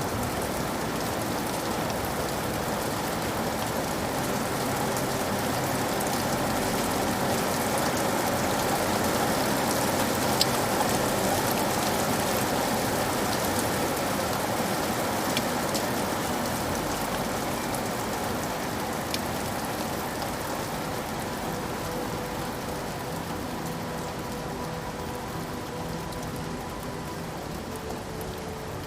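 Steady rain falling, with a few sharp single drop hits standing out. It swells a little about a third of the way in and eases off gently toward the end.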